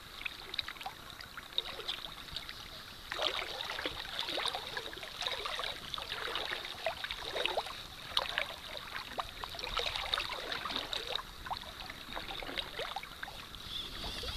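Shallow seawater sloshing and splashing around the legs of people wading slowly, in irregular bursts that grow busier about three seconds in.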